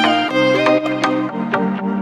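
Instrumental music: a melody of short plucked or struck notes over sustained chords, with no vocals.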